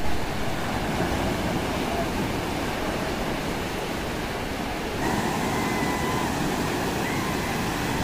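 Sea surf breaking and washing up a sandy beach, a steady rushing noise. About five seconds in it gets a little louder and a faint thin tone comes in.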